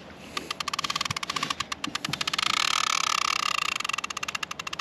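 Fishing reel clicking rapidly, about a dozen clicks a second, as a hooked catfish is fought on a heavily bent rod. The clicking grows loudest in the middle and eases off near the end.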